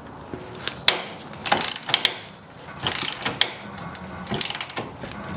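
Hand ratchet wrench clicking in several short bursts as it turns a fender bolt.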